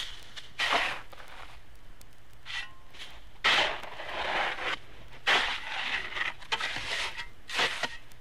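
A shovel scraping into loose material and tossing it, in irregular strokes about a second long with gaps between them.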